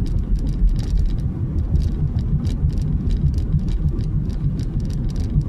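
Car driving, heard from inside the cabin: a steady low road and engine rumble, with frequent light, irregular ticks over it.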